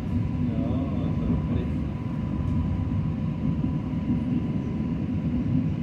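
Electric commuter train running: a steady low rumble with a thin, steady whine above it.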